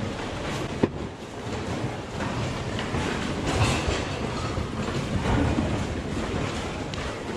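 Fabric rustling and items knocking and clattering as a coat is dragged out of a bin of mixed clothes and toys, with a sharp click about a second in, over a steady low rumble.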